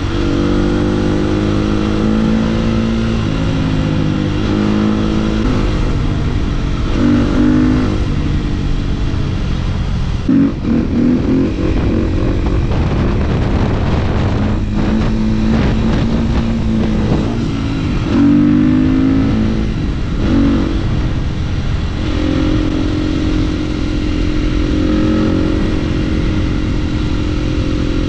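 Husqvarna 450 supermoto's single-cylinder four-stroke engine under way, revving up through the gears with its pitch stepping down at each shift, then rising again several times.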